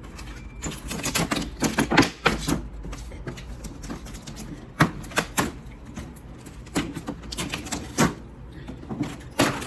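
Packaging being handled and opened: irregular clusters of sharp clicks and crackles, in several bursts with short pauses between.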